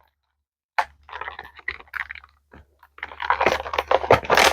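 Crinkling and clicking of plastic toy packaging and accessories being handled, sparse at first and then denser and louder for the last second and a half.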